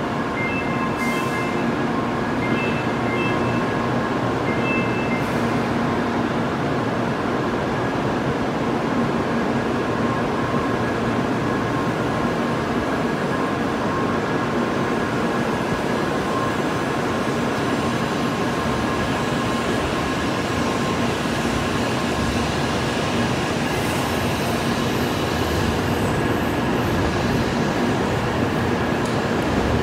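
N700-series Shinkansen train pulling out past the platform: a steady running noise with a constant whine. Short repeated beeps from the platform screen doors sound for the first five seconds.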